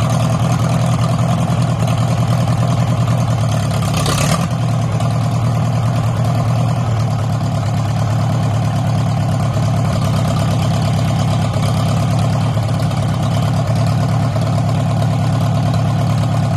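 Farmall C tractor's four-cylinder gasoline engine running steadily, with a brief burst of noise about four seconds in.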